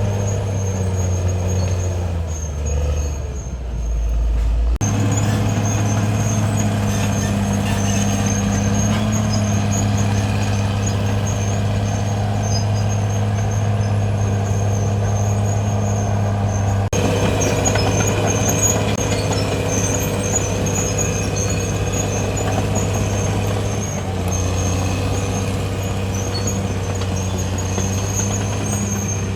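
Caterpillar D6R XL bulldozer's diesel engine running steadily under load, with a brief dip and a lower note about three seconds in.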